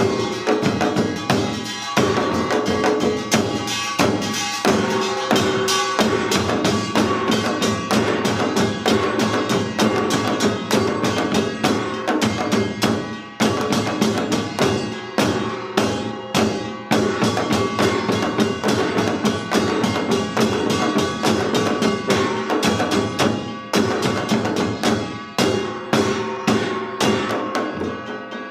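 Korean samulnori ensemble playing Yeongnam rhythms: janggu hourglass drums and buk barrel drums struck in a fast, dense rhythm over the clang and ring of kkwaenggwari and jing gongs, with a brief lull about halfway through.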